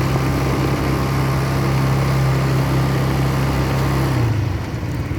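ATV engine running at a steady pitch, then dropping in pitch and easing off about four seconds in.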